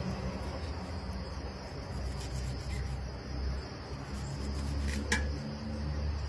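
Steady high insect chirring, like crickets in long grass, over a low steady rumble, with one sharp click about five seconds in.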